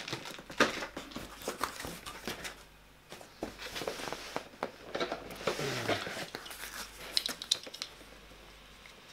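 Rummaging in a cardboard box: packaging rustling and crinkling, with irregular clicks and knocks as grey plastic tablet-stand pieces are handled and lifted out. It goes quieter for about the last second.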